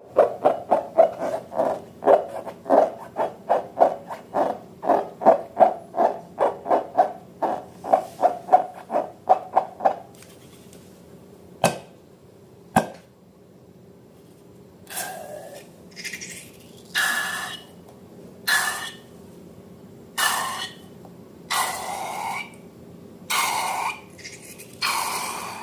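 Slime being squeezed and worked by hand: a quick run of wet squelches and pops for about ten seconds, two sharp clicks, then a series of longer squishy squeaks.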